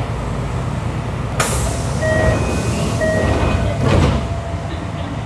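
Kintetsu 3200 series train car standing with a steady air-conditioning and equipment hum; about a second and a half in comes a sudden hiss of released air, then a two-note chime sounds twice, with a thud just after four seconds.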